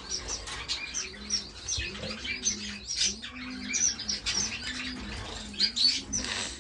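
A roomful of small finches chirping over one another in quick, high peeps, with a low, arching call repeating about once a second underneath.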